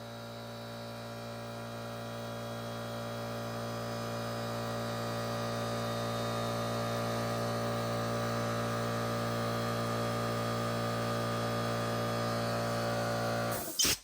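Corded DeWalt air compressor motor running with a steady hum that grows gradually louder. It shuts off abruptly near the end, followed by a few short, sharp bursts of noise.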